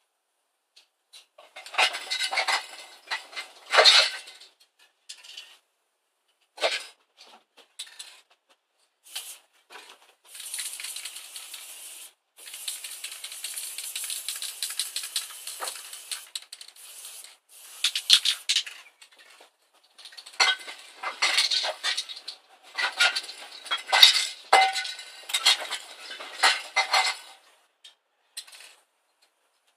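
Aerosol spray-paint can shaken hard, its mixing ball rattling and clinking in bursts near the start and again in the last third, with a steady hiss of paint being sprayed onto a brick wall for several seconds in the middle.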